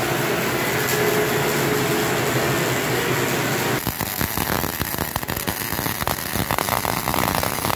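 Electric arc welding, building up the worn bearing journal of a steel roll with weld: a steady hiss at first, turning into a dense, irregular crackle from about four seconds in.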